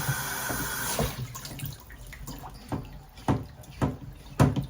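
Water spraying from a shower head cuts off about a second in, followed by a series of short knocks and clunks of the fittings being handled.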